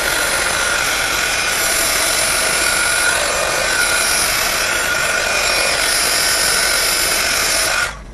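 Handheld embossing heat gun running, a steady rush of blown air with a faint motor whine, heating embossing on a flower. It switches off abruptly near the end.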